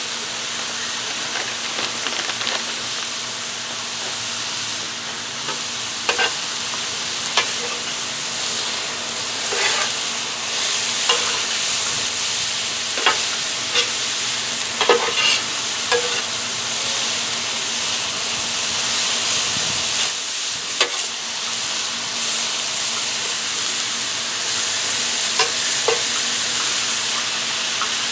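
Cauliflower rice, diced chicken, peas and carrots sizzling steadily on a hot homemade flat-top griddle, while a metal spatula scrapes and clacks against the griddle plate every second or few as the food is stirred and spread.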